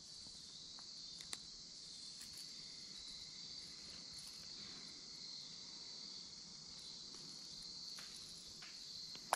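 Faint, steady chorus of insects: an even, high buzz with a couple of small clicks.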